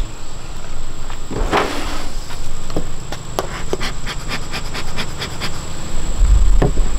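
Bee smoker being handled and puffed: one puff, then a run of quick, light clicks and taps as it is worked with a hive tool, over a low wind rumble on the microphone.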